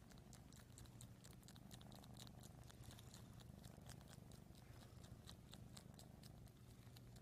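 Kitten purring faintly close to the microphone, a low steady rumble, with a quick run of soft clicks, about four or five a second, from its tongue licking.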